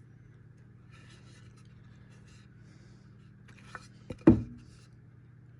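Handling noise: faint rustling and scraping, a light click and a knock, then a solid thump with a brief low ring about four seconds in, as of something being picked up and set down, over a low steady hum.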